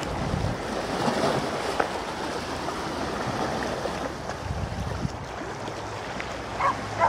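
Wind buffeting the microphone of a handheld camera: an uneven rumbling hiss, with two short higher sounds near the end.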